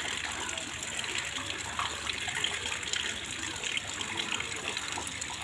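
Rain falling steadily, a dense patter of drops on water.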